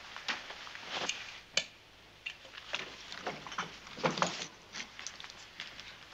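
Irregular light clicks, taps and rustles of small objects being handled, with a louder cluster about four seconds in.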